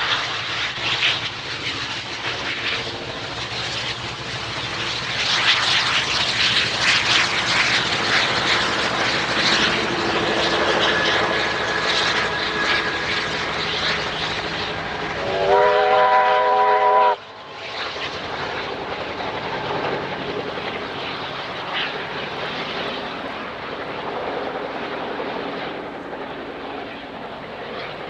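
Garratt steam locomotive 6029 working past, a loud steady rumble of exhaust and running gear. About halfway through its steam whistle sounds a chord for about two seconds and cuts off sharply, after which the train's sound is quieter as it draws away.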